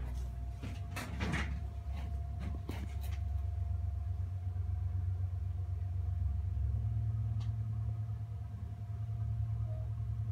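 Wooden board of a clay sculpture being turned by hand on a workbench, giving a few knocks and scrapes in the first three seconds and a single faint tick later, over a steady low rumble.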